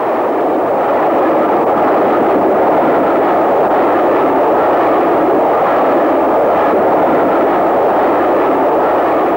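Steam-hauled passenger train passing at speed: a loud, steady rushing noise of the locomotive and coaches running over the rails, with no distinct exhaust beat.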